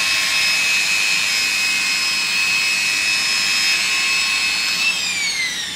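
Electric rotary polisher spinning its foam pad against black car paint, a steady high whine during pre-polishing, the cutting step after 6000-grit wet sanding. About five seconds in the pitch starts to fall as the motor slows.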